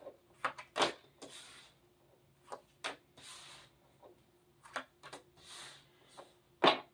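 Tarot cards being dealt one at a time onto a tabletop: a series of soft taps as cards land, with about three brief swishes of cards sliding off the deck and across the table.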